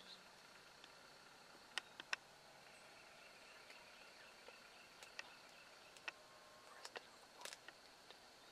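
Near silence in a quiet rural field: a faint, steady, high-pitched hum, with a quick run of three sharp ticks about two seconds in and several more scattered ticks in the second half.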